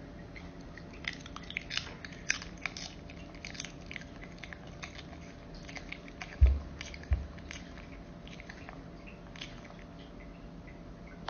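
Chihuahua biting into and chewing slices of fresh cucumber: a quick run of crisp crunches over the first few seconds, then sparser ones. Two short dull thumps a little past the middle.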